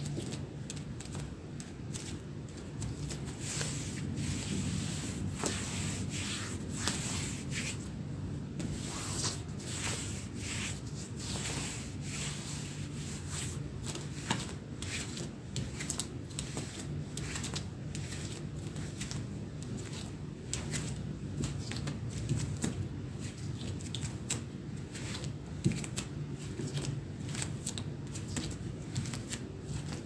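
Bare feet stepping softly on a wooden parquet floor: a run of light, irregular taps and scuffs, several a second, with denim jeans rubbing at each step. A steady low hum lies underneath.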